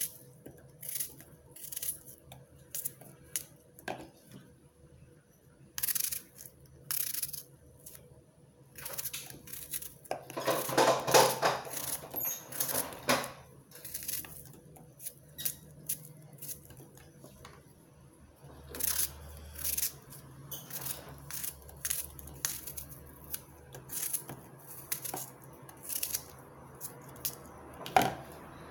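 Kitchen knife cutting an apple into small pieces over a plastic bowl: irregular crisp cuts and light clicks, with a louder, busier run of cutting about ten to thirteen seconds in.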